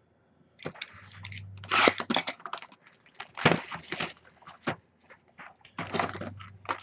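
Crackling and tearing of card-pack wrappers and packaging as a box of trading cards is opened: irregular crinkles and scrapes with sharp clicks.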